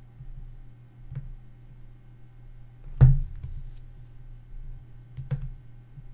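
A few sharp clicks and knocks at a computer desk while a mouse works on-screen sliders: three in all, the loudest a thump about three seconds in. Under them runs a steady low hum.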